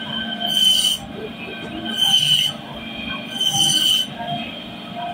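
Band saw running with a steady whine, its blade slicing through a boal fish three times; each cut is a louder, harsher noise lasting about half a second.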